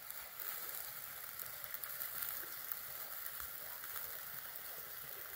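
Meat skewers sizzling on a small wire grill over a fire: a steady hiss with fine crackles and pops.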